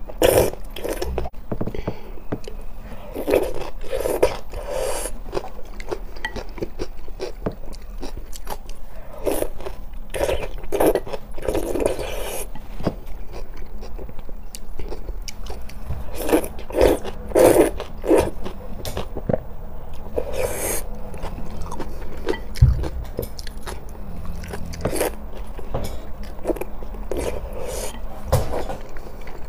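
Close-up eating sounds: wet slurping and chewing of slippery starch noodles in a spicy-sour broth, in uneven mouthfuls with short pauses between them.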